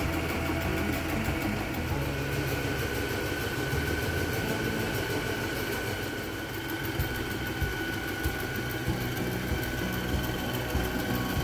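Sailrite Ultrafeed zigzag walking-foot sewing machine running steadily, stitching heavy sailcloth with a fast, even ticking of the needle.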